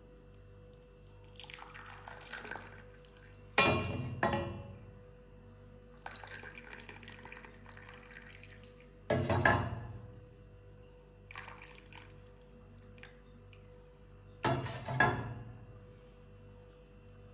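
Hot tea being poured from a steel pan through a steel mesh tea strainer into clay cups: the stream splashes softly in two spells. Three sharp metallic clinks, about five seconds apart, come from the pan and strainer knocking together or against the cups.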